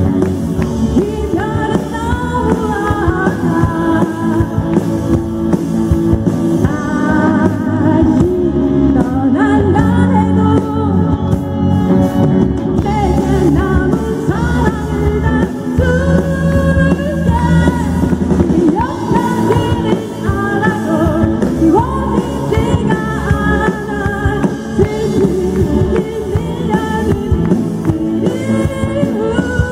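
Live rock band playing through a PA: a woman singing the lead vocal over electric guitars, bass, drums and keyboard.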